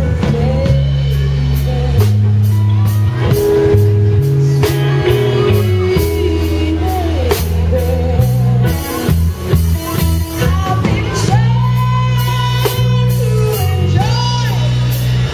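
Live rock band playing: a woman sings over electric guitar, a strong bass line and drums.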